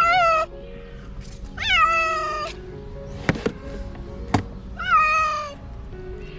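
Tabby cat meowing from inside a plastic pet carrier: a short meow at the start, then two longer drawn-out meows, one about a second and a half in and one near the end. Two sharp knocks sound between the last two meows.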